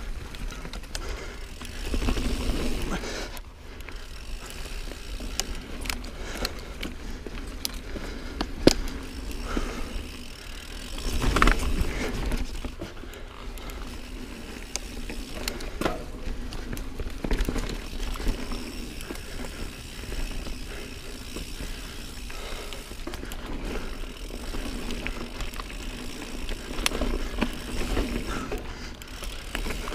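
Niner Jet 9 RDO full-suspension mountain bike riding dirt singletrack: steady tyre noise on the trail with a low rumble, and scattered sharp knocks and rattles from the bike over bumps. The noise swells louder about 2 s and 11 s in.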